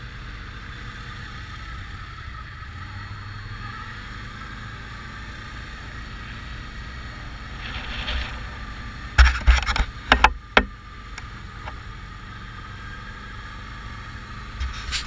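ATV engine running steadily as the quad rolls along a gravel track at low speed. Several sharp, loud knocks come about nine to ten seconds in.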